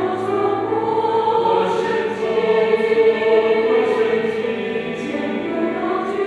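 Church choir singing a Christmas cantata, many voices holding long sung notes together with words.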